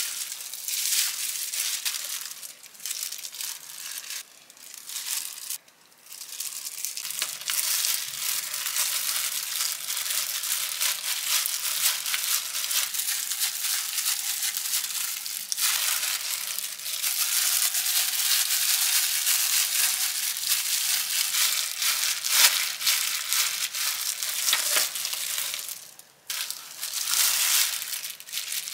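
Clear disposable plastic gloves crinkling and rustling while hands lay fillings on seaweed and rice and roll and press a gimbap on a plastic rolling mat, with a couple of brief pauses.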